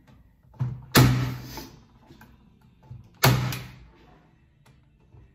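Corded electric nail gun firing twice, about two seconds apart, driving nails through a tulipwood support fillet: each shot is a sharp snap with a short ring, preceded by a faint click.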